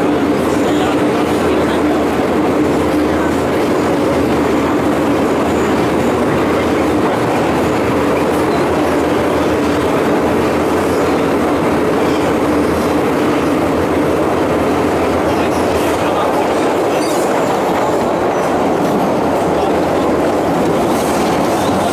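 MTR M-Train metro car running steadily at speed, heard from on board: a continuous rumble of wheels on rail with some clickety-clack, and a steady hum that weakens about a third of the way in.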